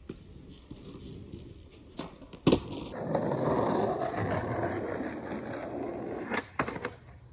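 Skateboard: a sharp clack about two and a half seconds in, then its wheels rolling loudly for about three seconds, ending with a few quick clacks near the end.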